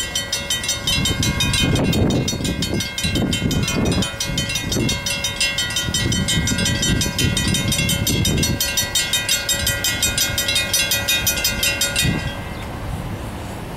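A railroad crossing bell rings rapidly as an EMD F7 diesel locomotive passes over the grade crossing with a low rumble of engine and wheels. The bell and the train cut off abruptly about twelve seconds in, leaving road traffic noise.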